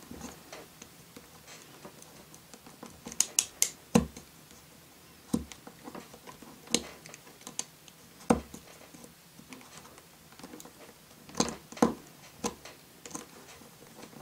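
Craft knife shaving and scraping the end of a plastic K'nex rod against a cutting mat: irregular sharp clicks and short scrapes, with a quick cluster of three a little after three seconds in.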